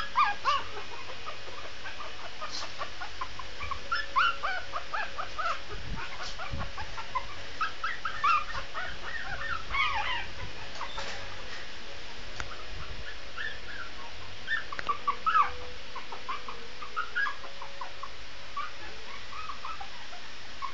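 Shih tzu puppy whimpering and yipping: many short, high-pitched squeaky cries, on and off.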